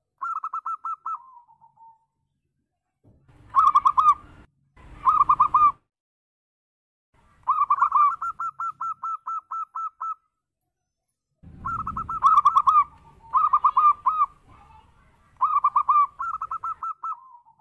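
Zebra dove (local perkutut) cooing: several phrases of fast, staccato cooing notes at about one pitch, separated by short pauses, some trailing off into a lower note.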